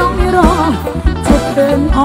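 Live mor lam band music: a melodic lead line with wavering, bending notes over a steady kick-drum beat.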